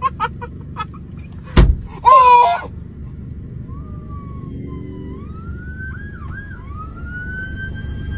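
A sharp knock about one and a half seconds in and a short high cry, then a long wailing, siren-like tone that glides up, dips twice and slowly rises, over a steady low rumble.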